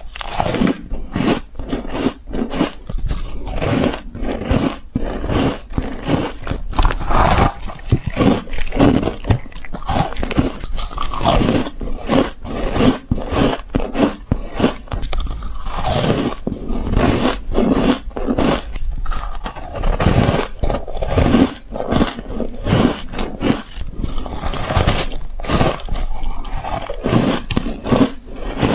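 Ice being bitten and chewed close to the microphone: a continuous run of rapid, sharp crunches and cracks.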